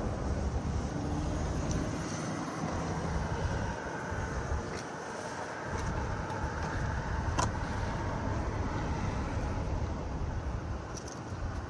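Steady low rumble, of the kind made by a running car or wind on the microphone, with a few faint clicks, the clearest about seven seconds in.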